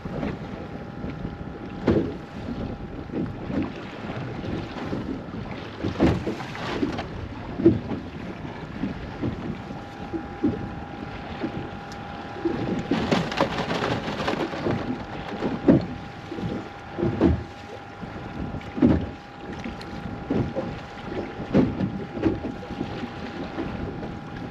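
Small waves slapping irregularly against the hull of a small fiberglass center-console boat, every second or two, with wind buffeting the microphone and a louder gust about halfway through.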